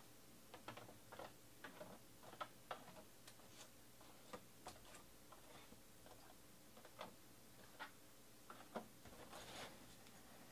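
Faint, irregular clicks and taps of trading cards and their packaging being handled, a few a second at most, with no steady rhythm.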